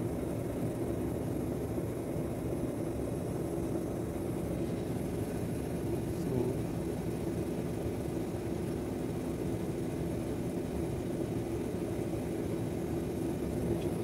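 Air-conditioning condensing unit with Copeland scroll compressors and condenser fan running: a steady, even mechanical drone. The system is being charged with refrigerant after running low on Freon.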